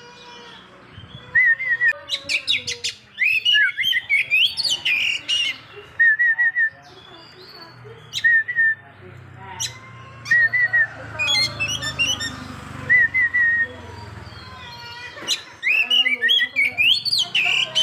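Oriental magpie-robin (kacer) singing: runs of quick whistled notes sweeping up and down, broken every few seconds by a short three-note chirp and a few sharp clicks.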